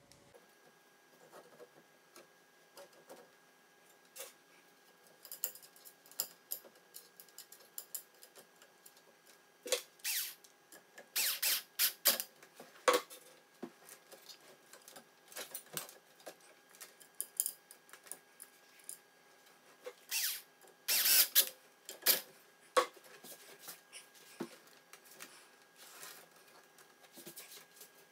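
Irregular metal clicks, taps and scraping as a graphics card's bracket is fitted and screwed onto a mining rig's metal mount bar, with two louder bouts of rattling partway through.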